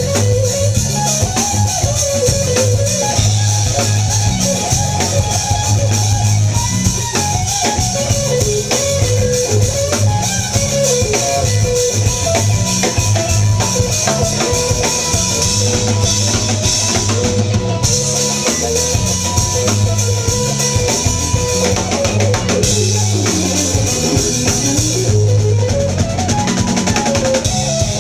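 Live band playing an instrumental passage: drum kit and bass keep a steady beat while a single lead line, likely guitar, wanders and bends up and down above them, loud throughout.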